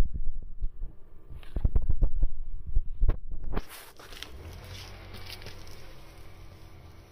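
A cat purring right against the microphone, heard as a low pulsing rumble with heavy thumps. It cuts off suddenly about three and a half seconds in, leaving a faint hiss with a few light ticks.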